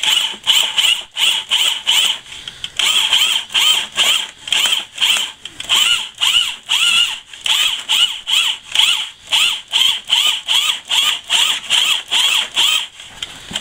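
Makita 1/2-inch drill spinning a mixing paddle through glass-tile mortar in a plastic bucket. The motor whine rises and falls in quick pulses, about two to three a second, and stops near the end.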